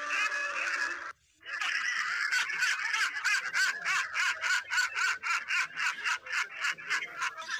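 A man laughing hysterically in high-pitched, rapid pulses, about five a second. It follows a brief drop to near silence about a second in.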